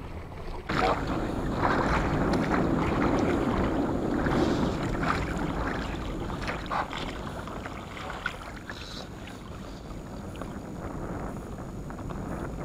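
River water rushing and lapping along the hull of a wooden rowing boat, louder over the first few seconds and then easing off, with a few light knocks.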